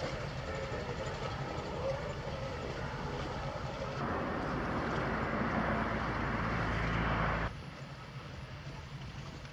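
Inland cargo ship's MAK diesel engine running with a steady low drone. It swells louder about four seconds in, then drops off suddenly to a quieter drone a few seconds later.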